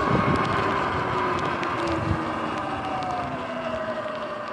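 Sur-Ron electric dirt bike on the move: the electric motor's whine sits over wind and tyre noise, its pitch and loudness slowly falling as the bike eases off. A few faint ticks come through.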